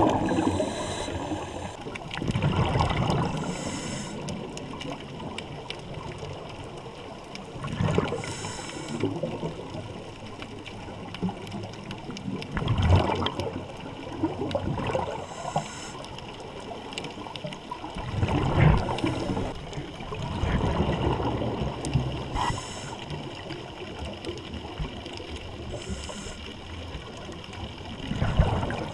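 Scuba diver breathing through a regulator underwater: a short hiss on each inhale and a rush of exhaled bubbles, repeating about every five seconds.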